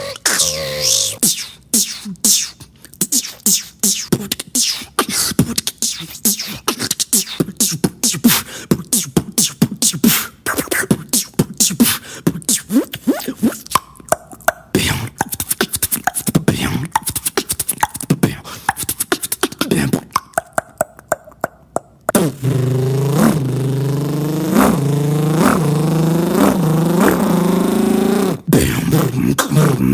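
Beatboxer making sound effects with the mouth and voice: a dense run of rapid clicks, pops and short pitched sweeps. About two thirds of the way in, this gives way suddenly to a continuous buzzing vocal tone that wobbles up and down in pitch.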